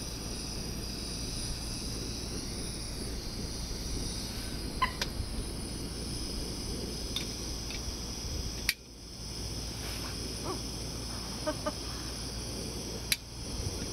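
Gas-canister camping stove burning with a steady hiss under a pot, with a few short clucking calls from a water bird, which she takes for a moorhen or coot, about five seconds in and again near the end. Two sharp clicks come about nine and thirteen seconds in.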